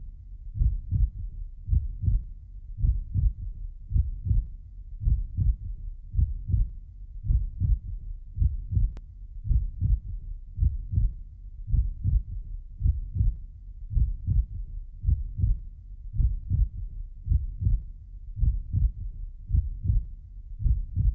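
Heartbeat sound effect: a steady, even rhythm of low double thumps, a little over one beat a second.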